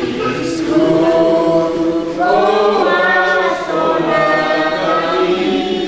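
A group of voices singing a hymn together in slow, held notes.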